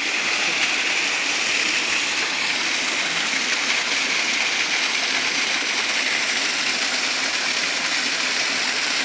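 Small waterfall: a thin stream of water pouring down a rock face into the rocks below, a steady rushing splash.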